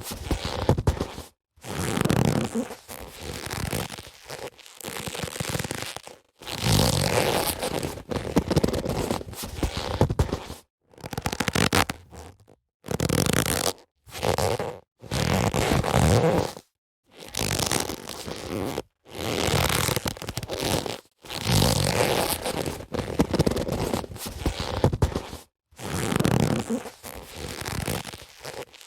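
Boxing gloves being handled: a string of rubbing, scraping sounds, each a second or two long, broken by short silent gaps.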